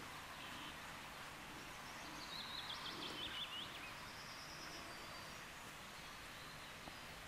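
Quiet outdoor ambience with a steady soft hiss. About two seconds in, a small songbird gives a short run of quick high notes stepping downward, followed by a thin high note.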